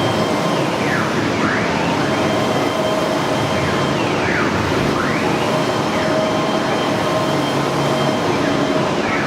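CNC wood router with a 6 kW HSD spindle running: a steady spindle tone over loud machine noise. The axis drive motors whine up and fall back several times as the gantry speeds up and slows down.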